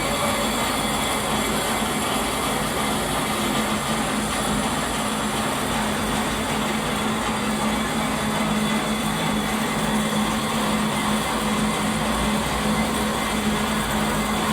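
Workshop machine running steadily, with a constant hum and an even mechanical noise that does not change.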